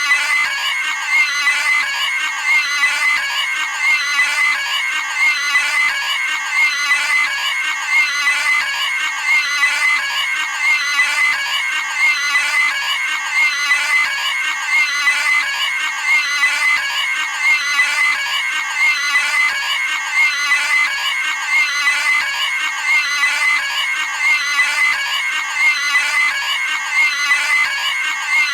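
Cartoon pig scream sound effect: a short, high-pitched squealing scream repeated over and over, one about every second and a half.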